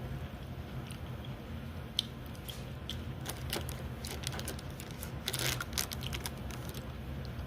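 A person eating ramen: chewing and small mouth and utensil clicks, scattered, with a denser cluster about five seconds in, over a steady low hum.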